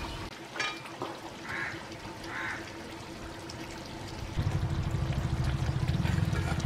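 A metal spatula clinks and scrapes against a pan of simmering chicken curry as it is stirred. From about four seconds in, a louder low rumble takes over.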